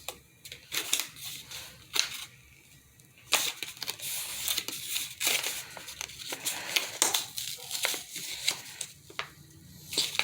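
Flashlight packaging being torn open and handled: irregular tearing and crinkling with sharp snaps and short rasps.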